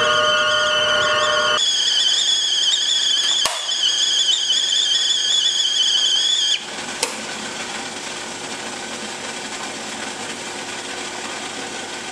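Stovetop kettle whistling at the boil, a high warbling whistle; for about the first second and a half a lower, steadier squeal sounds along with it. About six and a half seconds in the whistle cuts off suddenly as the spout's whistle cap is flipped open, a click follows, and steam hisses from the open spout.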